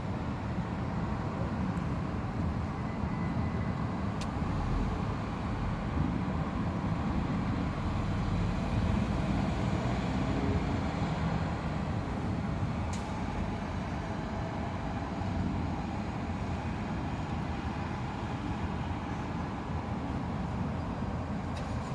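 Steady low rumble of a thunderstorm, swelling slightly midway, with faint sharp ticks about four and thirteen seconds in.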